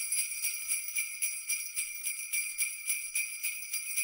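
Sleigh bells jingling in a steady rhythm, shaken about four times a second.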